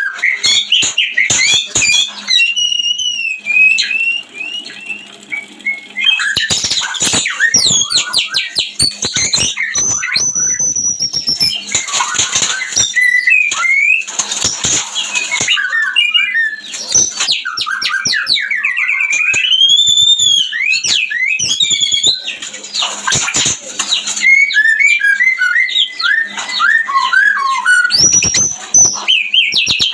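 White-rumped shamas (murai batu) of a mating pair singing and calling without pause: varied whistled phrases, rapid trills and sharp chattering notes.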